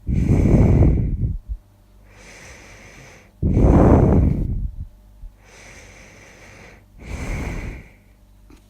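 A sleeping woman snoring loudly: three rattling snores, at the start, about three and a half seconds in and about seven seconds in, with softer breaths between them.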